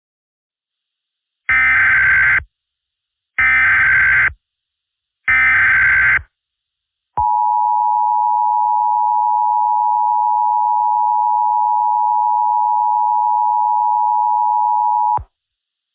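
Emergency Alert System header: three short bursts of digital data tones, about a second each, then the steady two-tone EAS attention signal, held for about eight seconds before cutting off, marking the start of a new alert.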